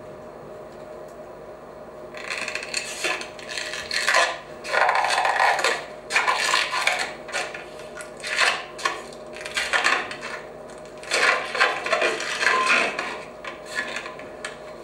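Long rubber modelling balloons being rubbed and squeezed by hand, making repeated loud squeaking, rubbing bursts that start about two seconds in, played back through a hall's loudspeakers.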